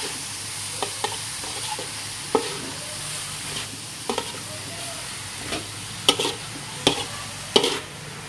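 Bitter melon and shredded fish stir-frying in a metal wok: a steady sizzle, with a metal spatula scraping and knocking against the pan at irregular moments, several times near the end.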